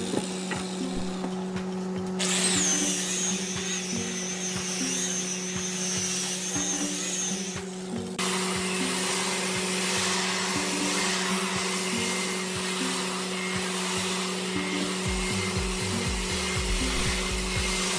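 Electric power tool running steadily, with a high wavering whine from about two seconds in. The sound changes abruptly about two and eight seconds in. Background music plays under it.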